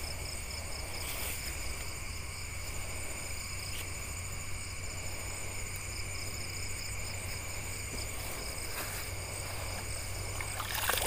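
A river flowing steadily with a constant chorus of night insects calling in high, pulsing trills over it. There are a few faint clicks from handling gear.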